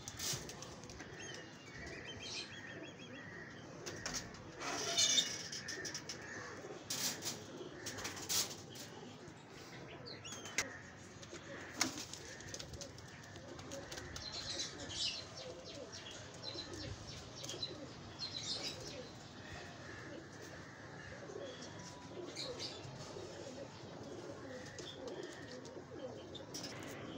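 Teddy pigeons in a loft: wings flapping and slapping several times, with cooing and a few chirps in between.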